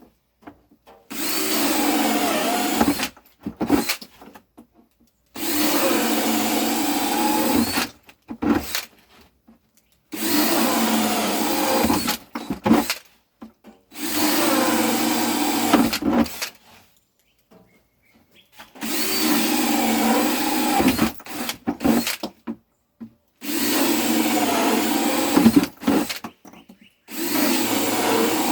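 Power drill boring a series of holes, running in bursts of two to three seconds, seven times, with short pauses between.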